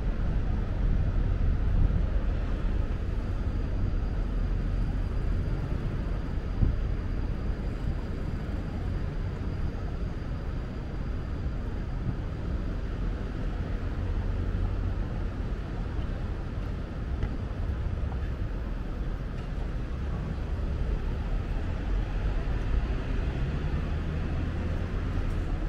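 City street traffic: a steady low rumble of vehicles.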